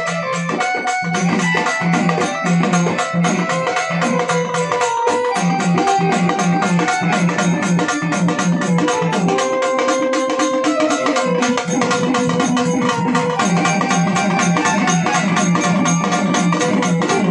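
Marathi folk music: a hand-beaten frame drum played in fast, steady strokes under a sustained keyboard melody.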